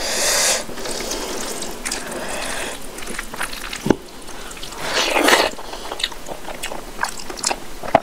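Rice and dal being mashed together by hand with soft, wet squishing. Then comes a single short knock, and a handful is put in the mouth and chewed, with many quick, wet mouth clicks.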